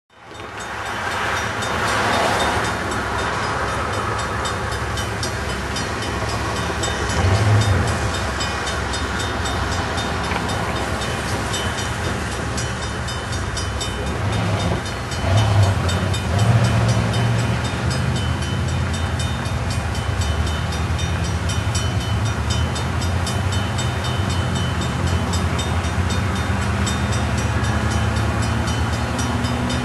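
Railroad crossing bell ringing steadily with evenly spaced strikes, over the low rumble of approaching diesel freight locomotives, whose tone rises slowly near the end.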